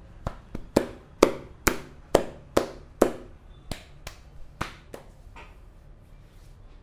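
Massage percussion on the head: a barber's hands striking in quick chopping blows, about a dozen at roughly two a second, loudest in the middle and tapering off after about five seconds.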